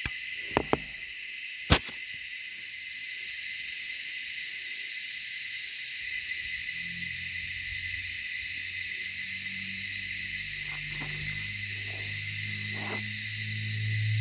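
A few sharp clicks as the solar bore pump's controller is switched on, then, about six seconds in, a low layered hum that builds as the submersible bore pump starts pushing water up the poly pipe. A steady high hiss runs underneath.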